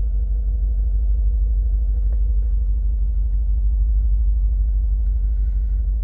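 Mercedes M278 5.5-litre twin-turbo V8 idling, heard from inside the cabin as a steady low rumble with a fine uneven pulse. The idle is rough, with misfires on several cylinders.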